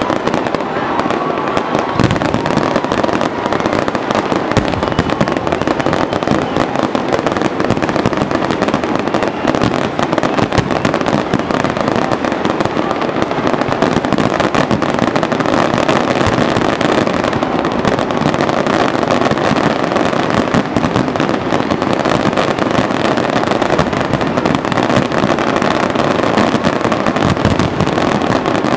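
Aerial fireworks going off continuously, with many shell bursts and crackling overlapping without a pause.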